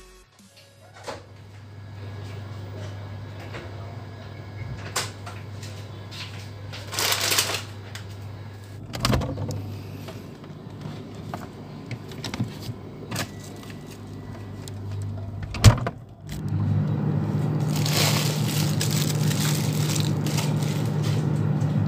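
Refrigerator humming steadily with its door open while food is taken off the shelves. Containers knock against the shelves and packaging rustles, with a sharp knock about two-thirds of the way in. After that the hum becomes louder.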